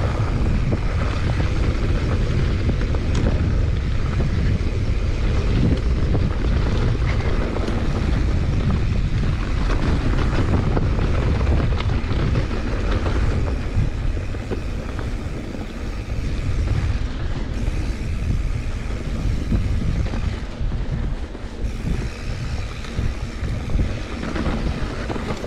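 Wind buffeting the microphone and knobby tyres rolling over loose dirt as a mountain bike descends a downhill trail at speed, with scattered small clicks and rattles from the bike. It is a steady, rushing rumble that eases slightly in the second half.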